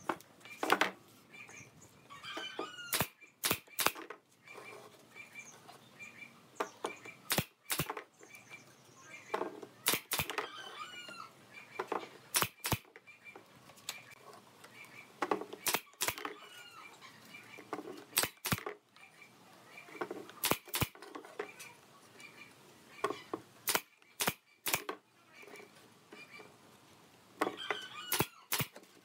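Pneumatic nail gun firing into pallet-wood slats: a sharp double crack every two to three seconds, about ten times. Birds chirp faintly between the shots.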